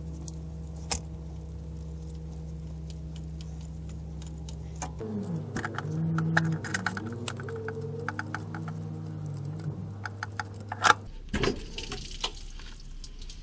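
Ratchet wrench with a 10 mm socket on a long extension clicking in short runs while unbolting the thermostat housing bolts, over a steady low hum.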